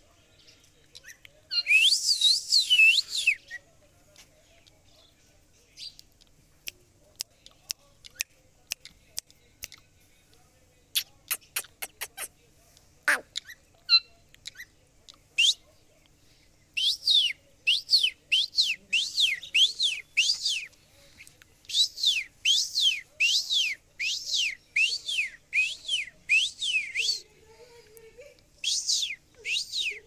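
Rose-ringed parakeet calling in runs of high chirps, about two a second, each dipping and rising in pitch. A scatter of sharp clicks comes in the quieter middle stretch.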